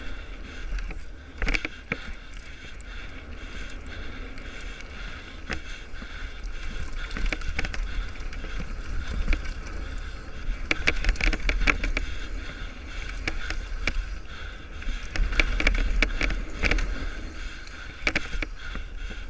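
Mountain bike clattering and rattling over a bumpy gravel trail at speed, with tyre crunch and a steady wind rumble on the microphone. The rattling comes in heavier bursts a little past halfway and again about three quarters through.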